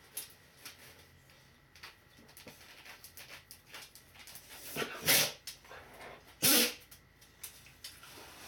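Akita-mix dog sneezing twice, two short sharp bursts about a second and a half apart past the middle, with fainter clicks around them. These are the happy, excited sneezes this dog gives.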